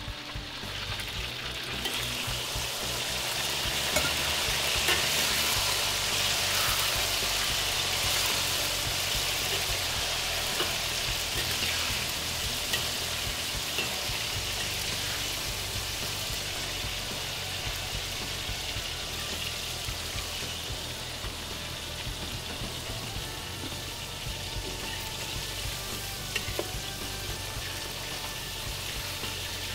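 Starch-coated pork pieces sizzling and bubbling in hot oil in a wok: a second fry in hotter oil to make them crisp. The sizzle swells a few seconds in, then eases slightly, with a few light clicks of a ladle stirring in the wok.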